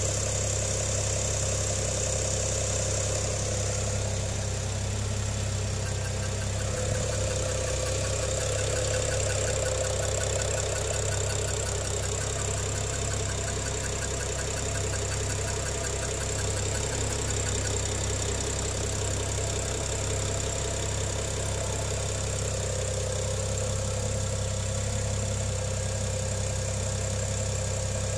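BMW N55 3.0-litre turbocharged straight-six running steadily at idle, carrying an abnormal noise that the owner cannot identify and is asking others to diagnose.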